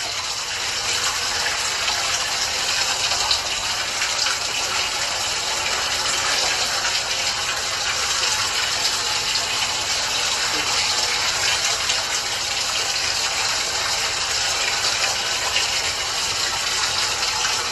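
A steady rushing hiss, even and unbroken, heard through the audio of a screen-recorded phone livestream.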